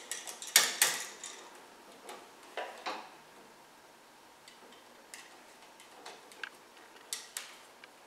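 A plastic GFCI receptacle and its copper wires being handled while a screwdriver tightens the terminal screws down on the wires: a string of small, sharp clicks and scrapes, loudest twice just under a second in, then lighter scattered ticks.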